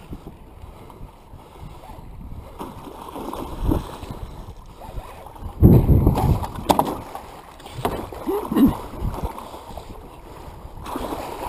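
Water splashing and churning as a hooked musky thrashes beside the boat while it is netted, with scattered knocks of the net and tackle against the boat and wind on the microphone. The loudest surge comes about six seconds in.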